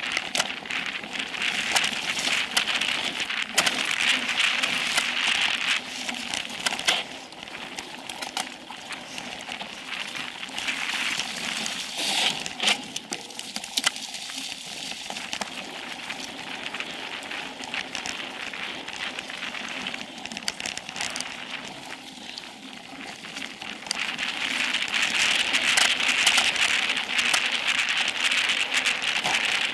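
Mountain bike tyres rolling fast over a dry dirt singletrack, heard from a camera on the seat post: a steady crackling hiss with scattered knocks and rattles from the bike going over bumps. It grows louder in the last few seconds as the bike speeds up.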